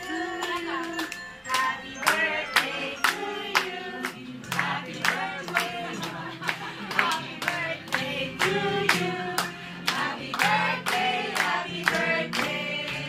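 A group of people clapping in time, about two claps a second, along with a song being sung.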